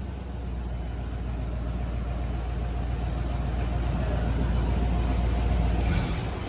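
A car engine running with a steady low rumble that slowly grows louder, then breaks off abruptly about six seconds in.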